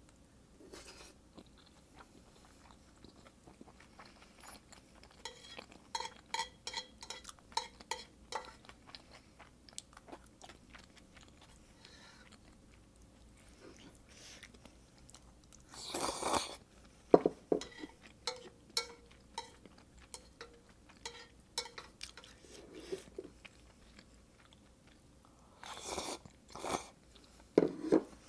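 Close-miked chewing of Carbo Buldak creamy spicy instant noodles: many short wet clicks and smacks. Loud slurps of noodles come about halfway through and again near the end.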